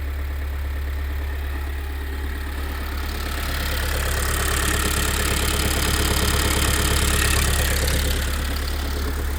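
Kia Sorento 2.2 diesel engine idling steadily, with a dull knock from deep in the driveline at the gearbox end. The knock persists after a new dual-mass flywheel was fitted, and the engine itself was checked and found sound.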